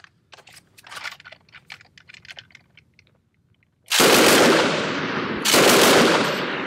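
A .303 British Lewis light machine gun firing on full automatic in two bursts, the first starting about four seconds in and the second about a second and a half later. A few faint clicks of handling the gun come first.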